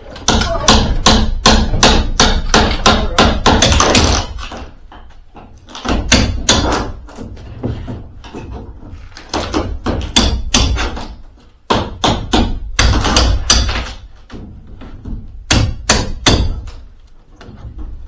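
Hammer blows in quick runs of several strikes, about four a second, with short pauses between the runs.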